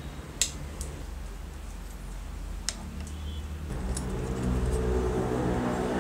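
A few light metallic clicks and taps as parts of an old aluminum-bodied jigsaw are handled and fitted together, over a steady low hum. About two-thirds of the way through, a louder steady sound with several pitches joins in.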